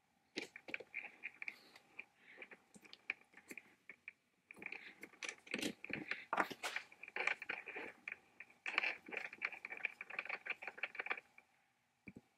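Keyed Jacobs drill chuck being twisted by hand, making rapid gritty metallic clicking with a faint ring, in three spells of a few seconds each and a single click near the end.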